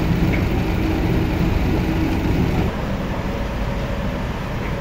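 A forklift's engine running steadily. Less than three seconds in the sound drops to a quieter, steady engine hum.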